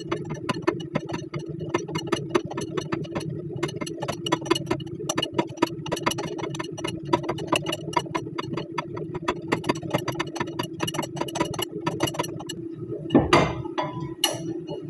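Hand ratchet clicking rapidly as the upper ball joint nut is run off the steering knuckle, over a steady low hum. A couple of louder knocks come near the end.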